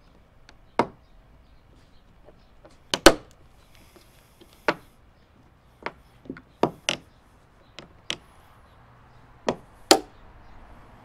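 Sharp plastic clicks and snaps as a plastic trim tool pries the badge off a 2021 Ram 2500's hood scoop, its clips popping loose. There are about a dozen irregular snaps, loudest about three seconds in and near the end.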